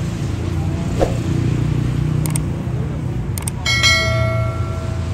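Steady city road-traffic rumble. Over it come a few sharp clicks and then, a little past halfway, a single metallic clang that rings on for about a second.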